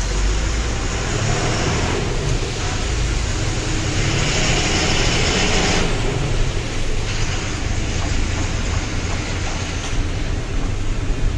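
Lorry engine running steadily with a low rumble and vehicle noise, with a louder hiss for about two seconds near the middle.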